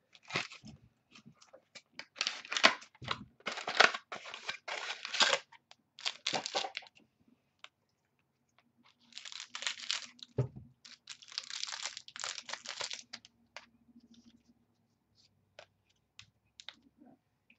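Foil wrapper of a football trading-card pack being torn open and crinkled by hand, in several bursts of rustling, with a few light clicks near the end as the cards are handled.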